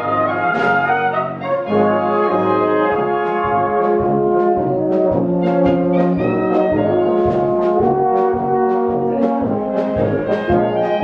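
Small Bohemian-style brass band playing live: trumpets and flugelhorns carry the tune over tubas and tenor horns holding sustained chords. A regular beat of sharp strokes comes in about four seconds in.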